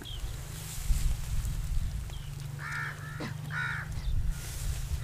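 A crow cawing twice, a little under a second apart, over a steady low rumble.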